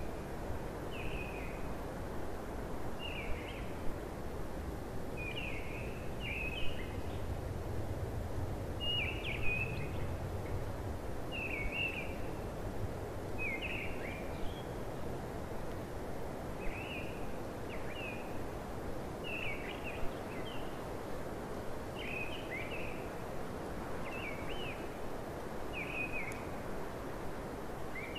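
A songbird giving short, repeated chirping calls, about a dozen in all at roughly two-second intervals, over a steady outdoor background noise.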